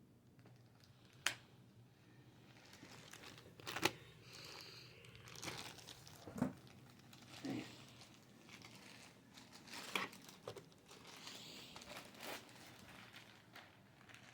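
Packaging being handled: intermittent crinkling and rustling with a few sharp knocks spread through it, quiet overall.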